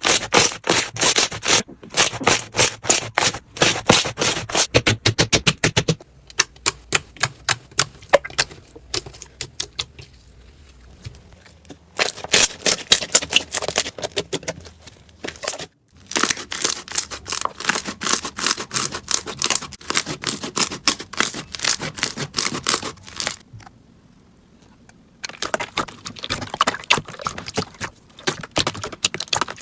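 Slime being pressed, poked and stretched by hand, making rapid crackling and clicking pops in dense bursts. There are quieter stretches between bursts and a sudden brief dropout about two-thirds of the way in.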